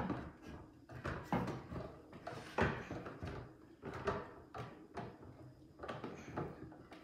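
Irregular knocks and clunks, about a dozen, of a Rockymounts Tomahawk bike rack's arm and clamp plate being handled and worked on a wooden table as the arm is flipped over and refitted to the other side.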